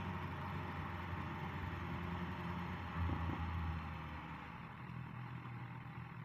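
Motorcycle engine running steadily at low revs, with a steady hiss over it. It swells briefly about three seconds in, then settles a little quieter.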